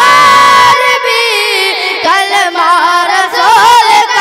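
Boys singing a naat (Urdu devotional song) into microphones, unaccompanied. The voice holds a long note at the start, then winds through quick wavering ornaments.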